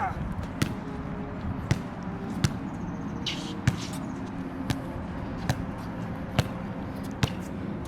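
Basketball being dribbled: sharp bounces about once a second, eight in all.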